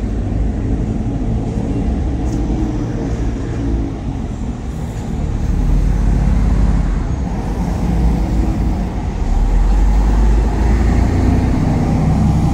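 Road traffic on a city street: a steady low rumble of passing vehicles that swells twice.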